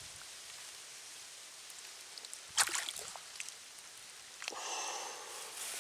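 A fishing float and bait cast onto the water, landing with one short sharp splash about two and a half seconds in, over a faint steady outdoor hiss. A softer rustling noise follows near the end.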